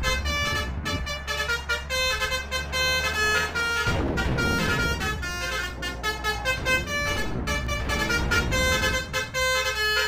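Bus 'telolet' basuri horn, a multi-tone musical air horn, playing a quick tune of short changing notes over the low rumble of a bus engine.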